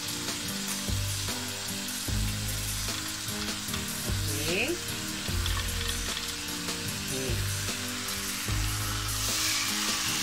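Oil-brushed, soy-marinated beef steak sizzling on a hot flat non-stick griddle pan, a steady frying hiss. The sizzle grows louder near the end as a second slice goes onto the pan.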